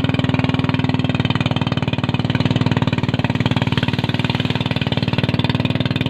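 Boat engine running steadily under way, a rapid, even chugging beat.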